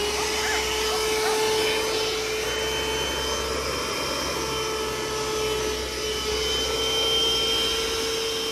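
Small bagless canister vacuum cleaner running with a steady whine over a rush of air while its nozzle sucks debris off a tent groundsheet. The whine breaks off briefly about four seconds in, then resumes.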